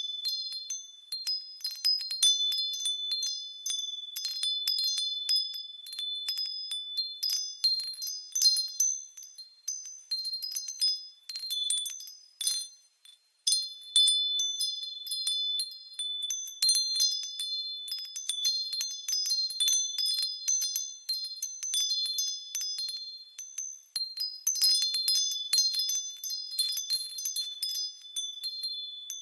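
Wind chimes ringing with many quick strikes and overlapping high-pitched tones that hang on after each strike. They briefly fall silent near the middle.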